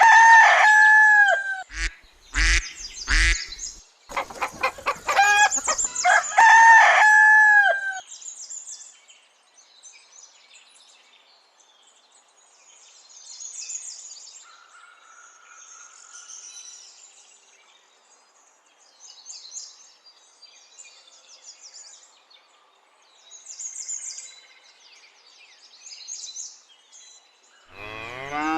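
A rooster crowing twice, about five seconds apart, with a few sharp knocks between the crows. Faint small-bird chirping follows.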